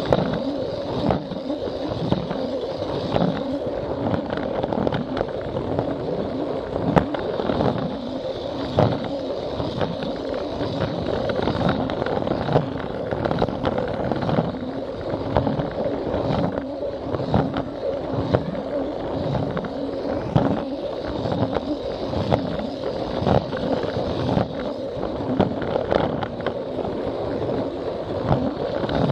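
Plarail battery-powered toy train running on plastic track, its small electric motor whirring steadily, heard from on board. Regular clicks about twice a second come from the wheels passing the joints between track pieces.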